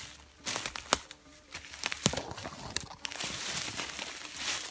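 Footsteps crunching through dry forest leaf litter and twigs, with sharp snaps and rustling as someone pushes in close among the branches.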